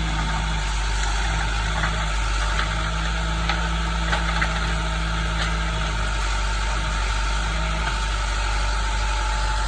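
Heavy land-clearing equipment's diesel engine running steadily, with a few faint knocks in the first half.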